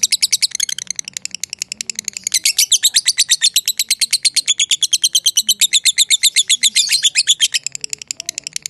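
Lovebird giving its long chattering 'ngekek' song: a fast, even string of sharp, high chirps, about ten a second, that dips briefly about two seconds in and again near the end.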